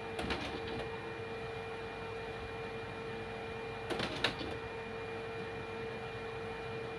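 Steady machine hum with a held whine, broken by short bursts of clicking near the start and again a little past halfway.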